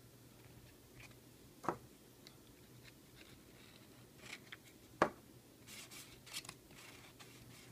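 Faint handling noises of small objects: two sharp clicks, about two seconds in and again about five seconds in, with light scraping and rustling between them, over a low steady hum.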